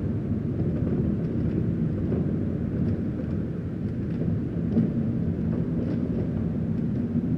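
Low, steady rumbling drone from horror sound design, with a faint held hum in it and scattered faint ticks above.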